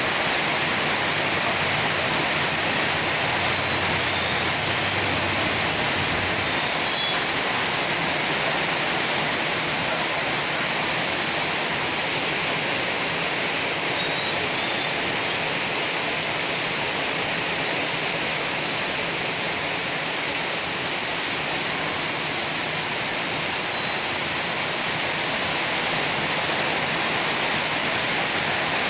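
Heavy typhoon rain falling steadily, a constant even hiss, with a few faint short high chirps over it.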